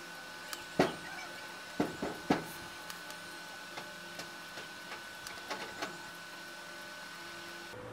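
Felt-tip sketch pen scratching against cardboard while colouring in, in a series of short, uneven strokes; the loudest comes about a second in, with a cluster a second later. A faint steady high whine runs underneath and stops just before the end.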